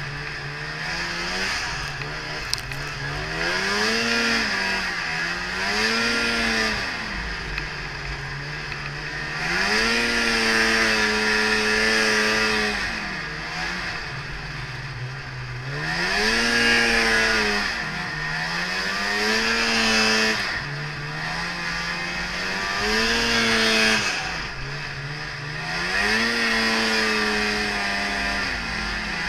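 Polaris Indy Trail 500 snowmobile's two-stroke engine, revving up and easing off again and again as it rides through snow, its pitch rising and falling about every two to three seconds. A rushing noise swells with each burst of throttle.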